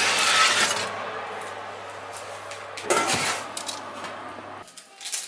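Dishes and utensils being handled: clattering and scraping that is loudest at the start and again about three seconds in, then dies down.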